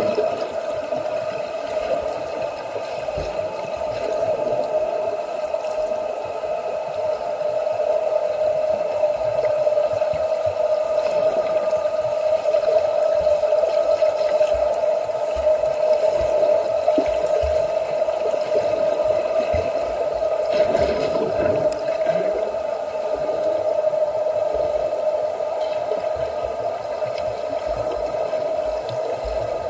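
Swimmers splashing through the water of a pool, over a steady machine hum.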